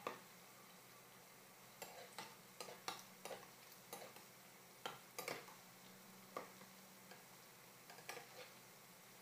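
Bottle-gourd koftas deep-frying in oil over a low flame: a faint sizzle broken by about a dozen sharp ticks and pops at irregular intervals.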